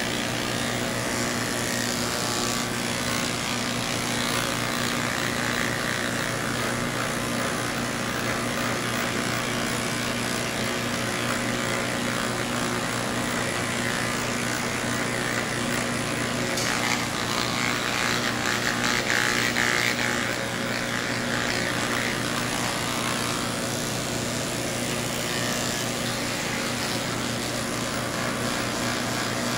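Cordless electric pet clippers running steadily as the blade shaves through a Persian cat's matted coat. The cutting hiss rises and falls as the blade works through the mats, and is loudest for a few seconds past the middle.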